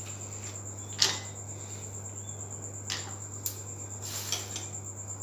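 Pieces of chocolate dropped into a small glass bowl: a few short clicks on the glass, the sharpest about a second in and three lighter ones later.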